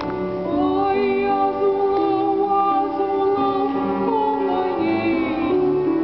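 A woman singing a classical solo song with upright piano accompaniment; the voice enters about half a second in and holds long, sustained notes over the piano.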